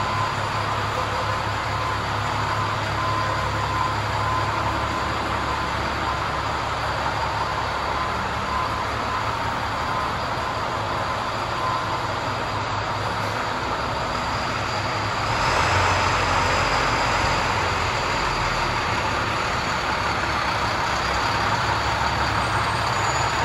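2008 International 7400 vacuum truck's diesel engine idling steadily, getting louder about two-thirds of the way through.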